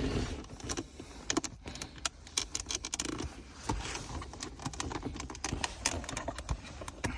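Irregular clicks and rattles of interior trim around a Lada Vesta's gear lever being handled and worked loose by hand.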